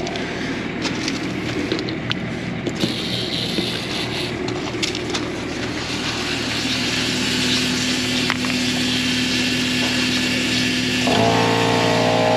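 Portable air compressor cutting in about eleven seconds in, its motor starting suddenly and running with a steady pitched drone. It is rebuilding pressure as air blows out through the RV's water lines. Before it starts there is a steady mechanical hum, a hiss of escaping air and a few clicks of the compartment door being handled.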